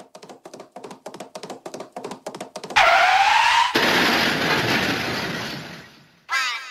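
Cartoon-style sound effects opening a children's song track. Quick knocks speed up and grow louder, then a loud crash with a rising whistle dies away over a couple of seconds, and near the end comes a wobbling, sliding tone.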